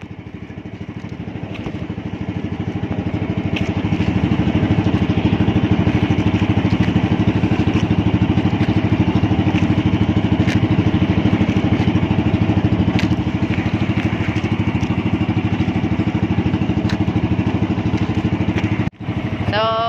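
Small engine of an outrigger fishing boat running steadily under way, growing louder over the first few seconds, with wind and water noise beneath it.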